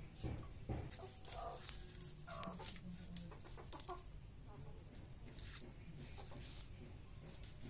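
A hen clucking a few short times, over light clicks of green chillies being sliced on an upright boti blade.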